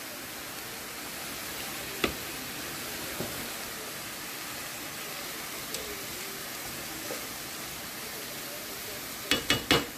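Diced onions sizzling in a ceramic nonstick frying pan as they are stirred with a spatula. A sharp knock comes about two seconds in, and a quick run of about four knocks near the end.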